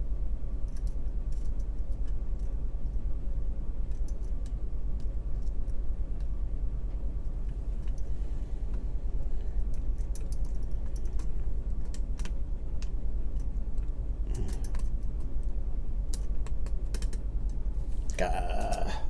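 Faint, irregular metallic clicks and ticks of a hook pick and tension wrench working the pins of a pin-tumbler lock, during single-pin picking, over a steady low hum.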